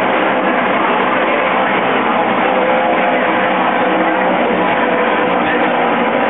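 A pack of NASCAR Truck Series race trucks' V8 engines running at full throttle around the oval: a loud, steady, dense engine sound with many pitches at once.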